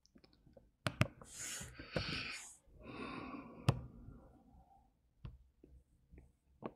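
Faint breathing close to the microphone, with a few sharp clicks in between.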